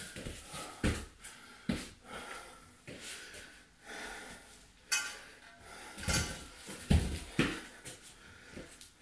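Scattered knocks and clunks of free-standing steel dip bars being handled and set down on foam floor mats, about half a dozen over several seconds, the loudest a little before the end.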